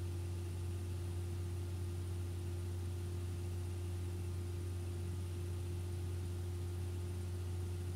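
A steady deep hum under an even faint hiss, with a fainter, thinner higher tone above it; nothing else sounds and the blade makes no audible noise.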